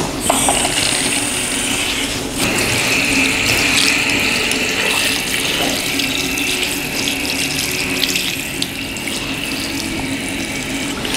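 Water running steadily as it is poured over a body during washing, the flow getting stronger about two seconds in.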